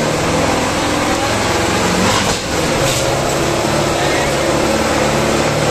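Kubota tractor's diesel engine running steadily under load as it pulls a train of four trolleys in a pulling contest.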